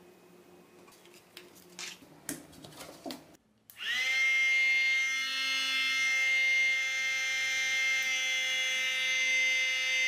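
Small DC motor and fan of a homemade soda-can hair dryer spinning up about four seconds in, then running with a steady high whine. Before it, a few light clicks and taps of handling.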